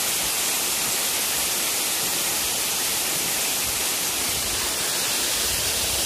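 Waterfall: the steady, even rush of falling water.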